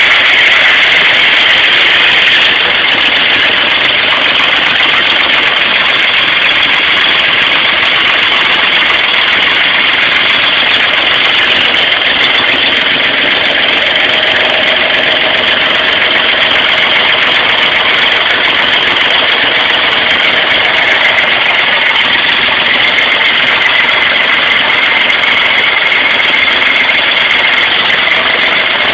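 Engine running steadily under test, loud and unchanging, with no revving up or down.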